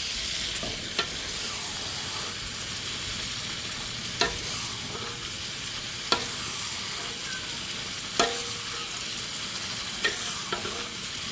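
Mujair fish frying in a wok: a steady sizzle of hot oil, broken by about six sharp knocks of a utensil against the pan.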